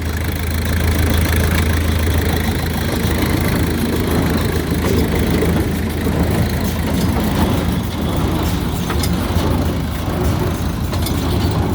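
Deutz four-cylinder diesel engine on a Freeman 370 baler running steadily, shortly after a cold start following months of sitting.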